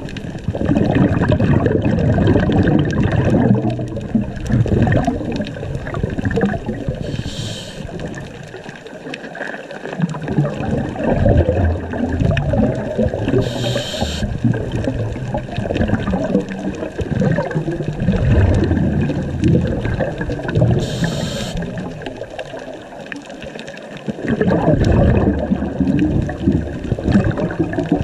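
Scuba diver's breathing heard underwater: long surges of gurgling exhaled bubbles from the regulator, broken by a short hiss of inhalation about every seven seconds.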